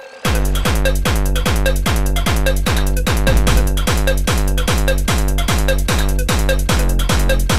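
Electronic dance music with a steady kick drum about twice a second and busy percussion between the beats, coming in suddenly just after the start.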